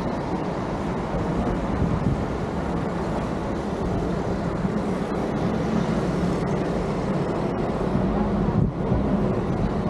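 A motor vehicle running steadily on the move, with a constant engine hum under wind and road noise.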